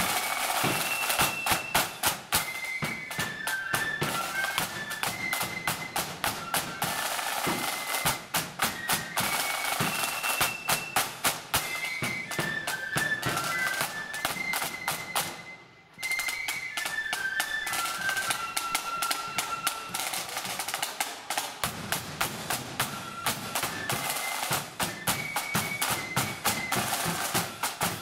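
Marching flute band playing as it parades: flutes carry a tune over rapid, crisp side-drum strokes. The sound cuts out for an instant about halfway through, then the band carries on.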